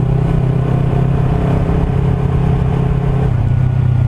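Kawasaki Ninja 300's parallel-twin engine running at a steady pitch as the bike cruises at constant speed, heard from the rider's camera with road noise.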